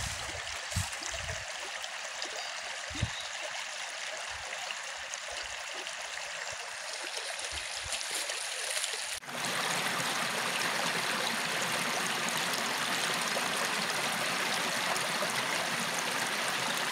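A small burn running over stones: a steady rush of water, with a few low knocks in the first few seconds. About nine seconds in it cuts to a louder, fuller rush of the water.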